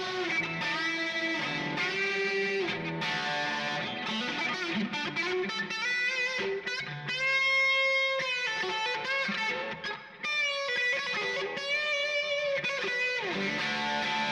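Electric guitar, a Gibson Custom Shop ES-339 with '57 Classic humbuckers played through a Kemper profiling amp on a Pro Sonic amp profile: a lead passage of notes and chords, several notes held with vibrato, the loudest sustained note about seven to eight seconds in.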